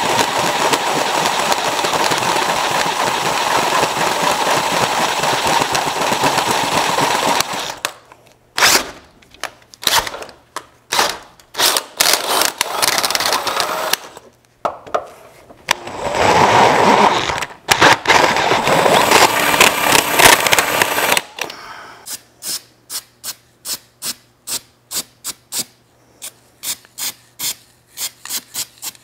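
Cordless drill boring out bolt holes in a steel truck frame. It runs steadily, then in short bursts, then steadily again. For the last seven seconds or so a ratchet clicks in quick, even strokes as bolts are drawn up.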